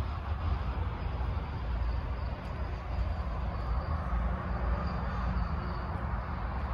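Steady hum of motorway traffic, a low rumble with a hiss of tyres over it, and faint insects chirring high above.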